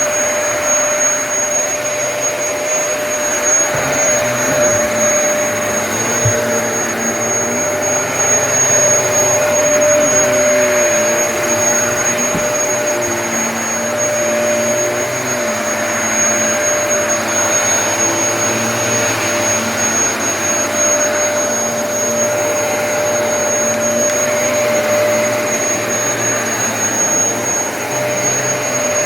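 Dyson DC33 upright vacuum cleaner running steadily while vacuuming the floor: a constant rush of air with a steady whine and a thin high tone, its lower hum wavering slightly as the load changes.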